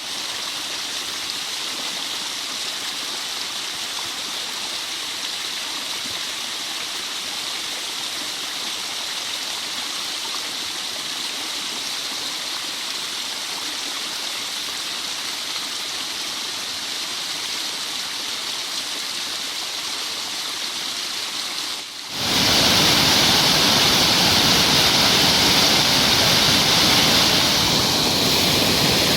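Mountain stream rushing, a steady noise of flowing water. About 22 s in it cuts abruptly to a louder, fuller rush.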